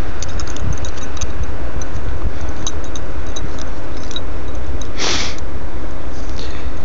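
Loud, steady low rumble of wind buffeting the microphone, with scattered faint ticks and one short hiss about five seconds in.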